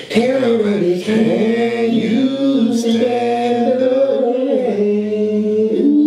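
A man's voice singing a cappella without words, long held notes that slide up and down in pitch.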